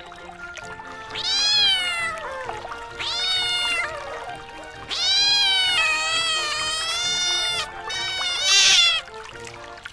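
Domestic cat meowing four times, each meow rising then falling in pitch; the third is the longest and wavers. Soft background music plays underneath.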